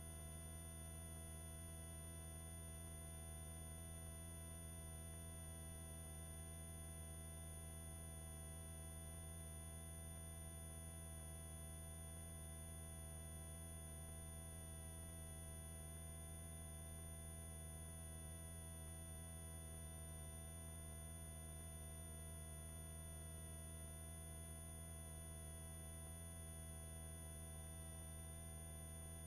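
Faint, steady hum of several held tones, with a thin high whine above it, unchanging throughout: the helicopter's cabin noise as it comes through the headset intercom feed between transmissions.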